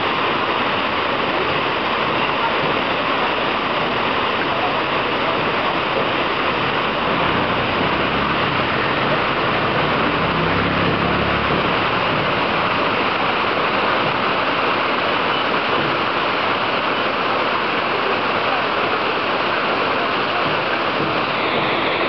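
Waterfall plunging onto rocks: a loud, steady rush of falling water.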